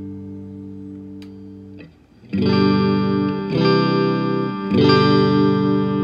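Fender American Standard electric guitar played through a Blackstar Studio 10 6L6 tube amp with reverb. A ringing chord fades away, with a brief pick click about a second in. After a short gap, three chords are struck a little over a second apart, each left to ring.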